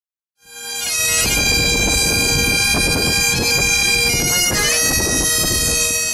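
Great Highland bagpipes playing a tune over their steady drone. The sound fades in about half a second in and begins to fade out near the end.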